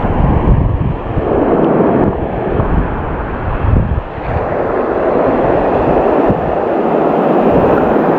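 Surf washing and foaming around the wader in shallow water, with strong wind buffeting the microphone in gusts, twice rising to a low rumble.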